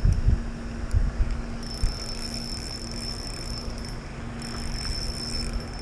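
Spinning reel being cranked to retrieve line: a steady high whir from the reel, starting about a second and a half in, pausing briefly near four seconds, then running again until near the end. A low steady hum and some handling rumble lie underneath.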